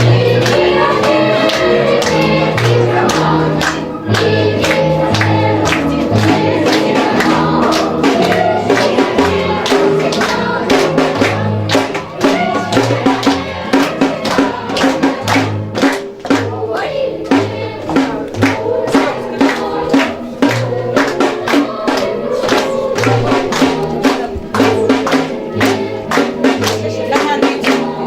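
Music with choral singing over a steady beat and a bouncing bass line; the drum strokes come through more strongly about halfway through.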